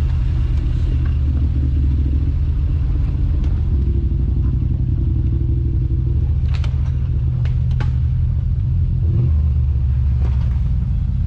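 Side-by-side UTV engine idling steadily, with a few sharp knocks about six to eight seconds in.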